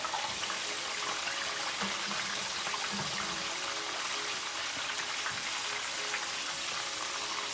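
Fish frying in hot oil: a steady sizzle with faint scattered crackles.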